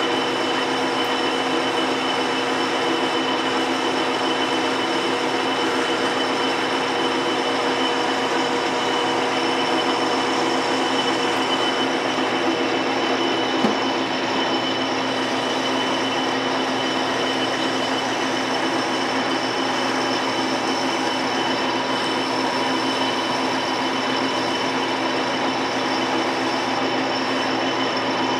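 Metal lathe running steadily while a boring bar cuts inside a bore of a part held in a four-jaw chuck: an even machine noise with a steady whine over it. A single short click comes about halfway through.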